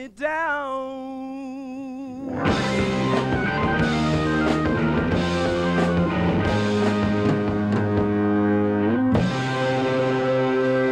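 Live rock band: a single held, wavering note, then about two seconds in the full band comes in with drums, electric guitar and bass playing sustained chords, shifting to a new chord near the end.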